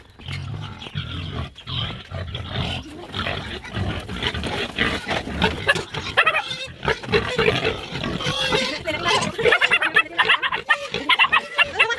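Pigs grunting and squealing over their feed, the squeals growing louder and more frequent in the last few seconds.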